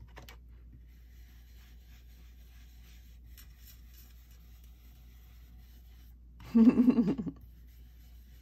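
Blending brush rubbing ink onto paper, a faint scratchy brushing. About six and a half seconds in there is a brief, louder vocal murmur.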